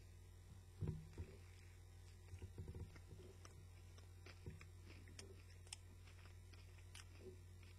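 Faint chewing of a mouthful of crispy chicken burger, with soft bursts of chewing in the first few seconds that thin out into small mouth clicks, over a steady low hum.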